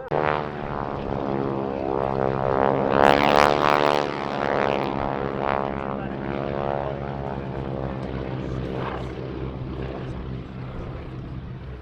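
Boeing Stearman biplanes with 450 hp Pratt & Whitney radial engines flying past. Their propeller-engine drone swells to its loudest about three to four seconds in, then drops in pitch and slowly fades.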